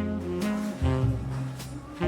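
Background instrumental jazz music with plucked bass notes.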